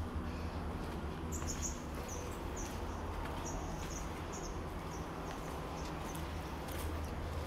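A small animal's short, high-pitched chirps, about nine of them at roughly two a second, starting about a second in and stopping a little past halfway, over a steady low rumble.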